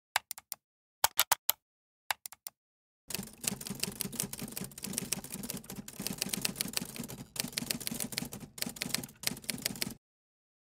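Three quick groups of sharp clicks, then a typewriter sound effect: rapid key clacks for about seven seconds, stopping abruptly near the end.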